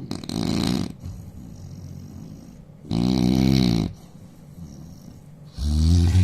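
A man snoring loudly: three snores, each about a second long, coming roughly every three seconds.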